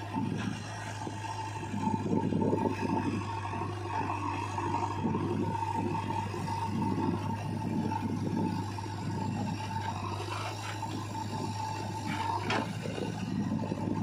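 Diesel engines of a JCB 3DX backhoe loader and Mahindra tractors running, with a steady low hum and uneven surges of engine noise as the backhoe works. A steady high whine runs alongside and stops with a sharp clank about twelve and a half seconds in.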